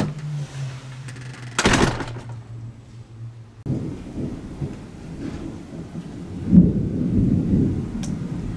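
Thunder rumbling low and rolling, swelling loudest about two-thirds of the way in. Before it sets in, a steady low hum and one short burst of noise are heard.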